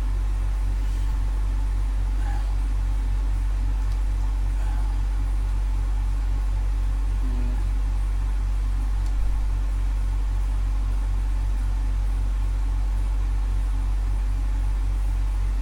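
Steady low electrical mains hum at 50 Hz and its 100 Hz double, over faint hiss.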